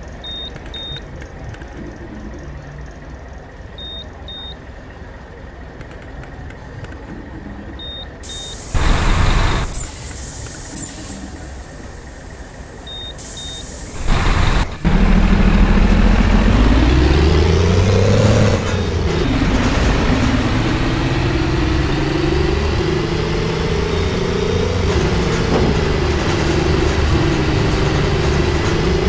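City bus with a truck-like engine sound: short pairs of high beeps every few seconds and two loud hisses, then the engine pulls away, rising in pitch, dropping at a gear change, and running on under load.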